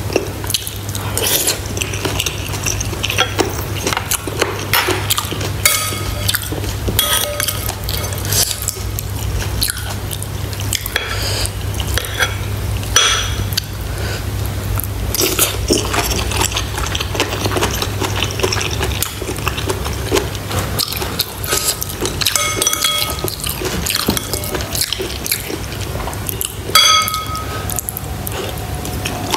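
Close-miked eating: a metal fork and spoon clinking against ceramic bowls again and again, several clinks ringing briefly, with wet sounds of soup and chewing. A steady low hum runs underneath.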